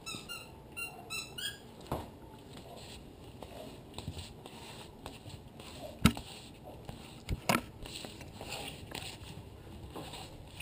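Corgi puppies' paws pattering and scuffling on a wooden floor, with sharp knocks as they bump a camera set on the floor, the loudest about six seconds in. A run of short high squeaks in the first second and a half.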